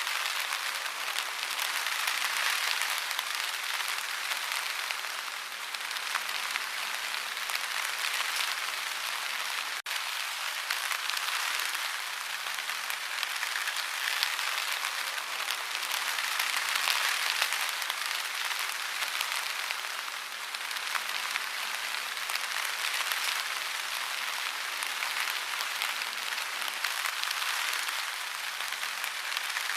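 Heavy rain falling in a steady, dense hiss that swells and eases a little, with no thunder. There is a momentary break in the sound about ten seconds in.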